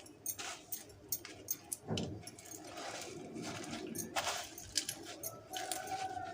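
Crushed cornflakes crackling and crunching in irregular small clicks as a chicken piece is pressed and turned in them for a crisp coating. A faint drawn-out falling tone sounds near the end.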